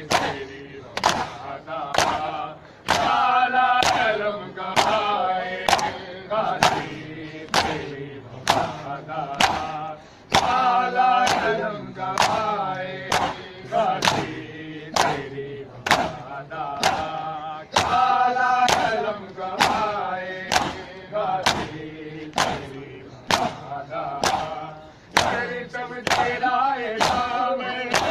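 Matam by a crowd of mourners: open hands slapping bare chests in unison on a steady beat of about five strokes every four seconds, with men chanting a noha together over the beat.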